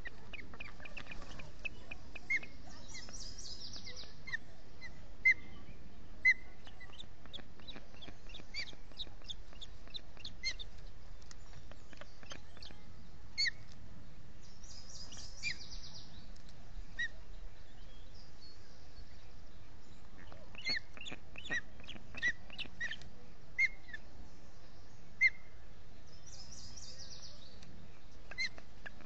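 Ospreys calling: short, sharp whistled chirps repeated every second or so. A few brief bursts of rapid, higher twittering come in between.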